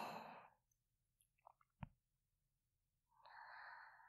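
A woman's soft breathing close to a binaural dummy-head microphone: a few small lip and mouth clicks, then one quiet breath out about three seconds in.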